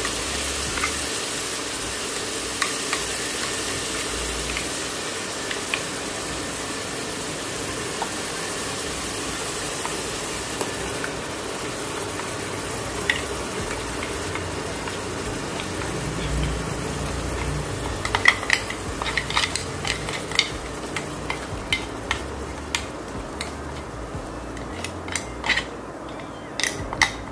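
Ground masala paste sizzling in hot oil in a pan. About two-thirds of the way through, the sizzle thins and a spatula starts stirring, clicking and scraping against the pan.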